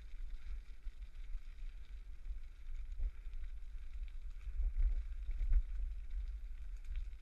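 Wind buffeting a GoPro's microphone and the rumble of a bicycle rolling along an unpaved towpath, with a few knocks from bumps about three seconds in and again around five seconds in.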